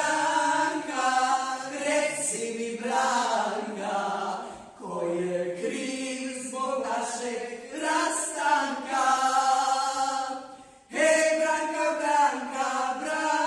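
A small group of people singing a song together, their voices in unison on long held notes. There are short breaks about five seconds and about eleven seconds in.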